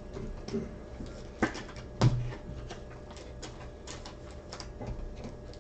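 Irregular light clicks and taps of things being handled on a desk, with two louder knocks about one and a half and two seconds in.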